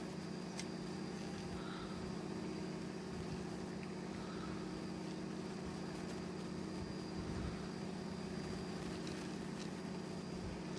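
Fishing boat's engine running with a steady low hum, a faint high whine sitting above it.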